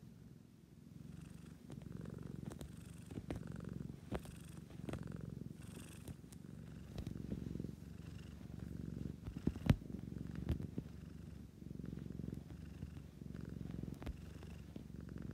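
Domestic cat purring close to the microphone, the purr swelling and easing in waves about every second and a half with its breathing. A few sharp clicks cut through it, the loudest about ten seconds in.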